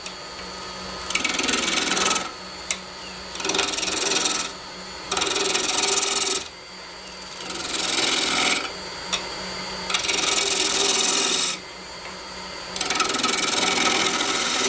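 Spindle gouge cutting a spalted maple workpiece spinning on a wood lathe, in about six short cuts of a second or two each with pauses between. The lathe's steady hum runs underneath.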